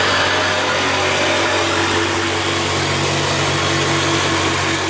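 Electric power saw running steadily with a constant motor hum; a higher hiss drops away right at the start.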